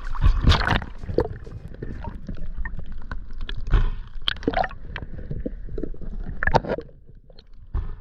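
Water splashing and gurgling around a camera at the surface as a swimmer moves through a pond, in irregular sloshes with several louder splashes. The sound drops away near the end as the camera goes under.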